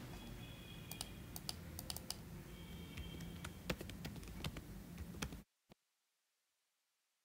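Typing on a computer keyboard: irregular key clicks over a low room hum. The sound cuts off abruptly about five and a half seconds in, with one more click just after.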